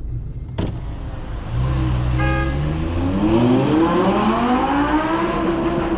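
Car engine heard from inside the car, pulling harder with its pitch rising steadily from about three seconds in and levelling off near the end. A short beep sounds about two seconds in.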